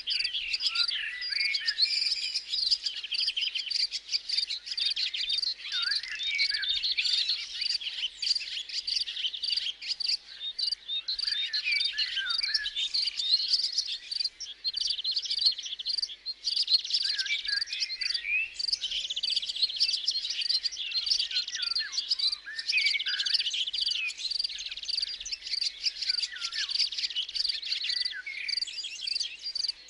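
A dense, continuous chorus of insects trilling, with many short bird chirps scattered over it.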